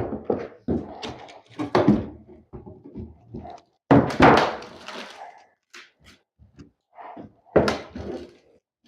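Irregular heavy thuds and knocks of rotten plywood subfloor being pried and broken up. There is a longer cracking crunch about four seconds in.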